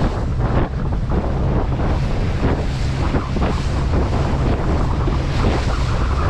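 Strong wind buffeting the microphone over rough, choppy water, heard aboard a small boat under way, as a steady loud rushing rumble.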